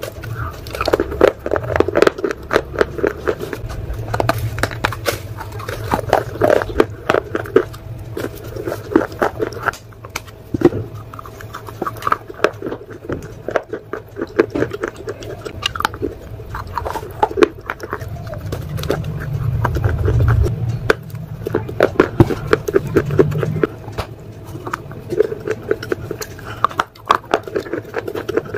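Close-up biting and chewing of a brittle dark grey slab of eaten earth, giving dense, crisp crunches and crackles with short pauses between bites.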